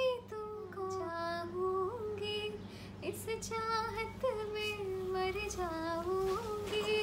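A woman's voice singing slow, long held notes that slide between pitches, with short breaks between phrases.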